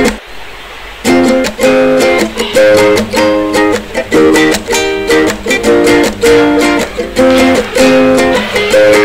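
Background music: an upbeat plucked-string tune with a steady rhythm. It drops out for most of the first second, then carries on.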